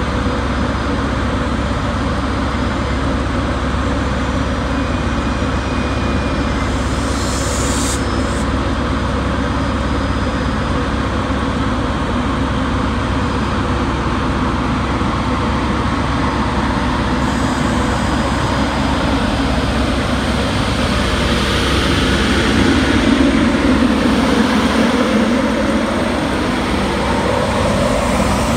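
LNER Class 91 electric locomotive running steadily with a loud, even drone from its cooling fans and equipment. About twenty seconds in it grows louder and a rising whine comes in as the locomotive pulls away past the platform.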